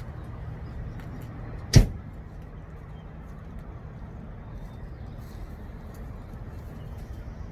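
A single sharp knock a little under two seconds in, over a steady low rumble.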